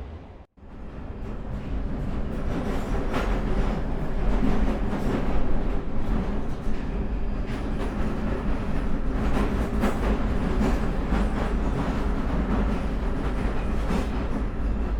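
London Underground train running: a steady low rumble with scattered rattles and knocks, fading in after a brief cut about half a second in.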